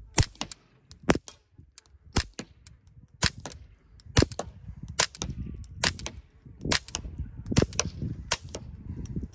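Ruger Mark IV 22/45 pistol with a Little Spoon .22 LR suppressor, fired ten times about a second apart with subsonic CCI Quiet semi-auto ammunition. Each shot is a sharp, short pop.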